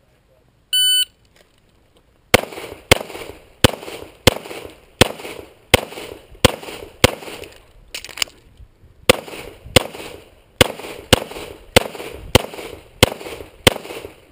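Electronic shot-timer start beep, then about a second and a half later a string of some seventeen rapid pistol shots from a .40 S&W EAA/Tanfoglio Witness Elite Match, each with a short echo, with a brief break midway.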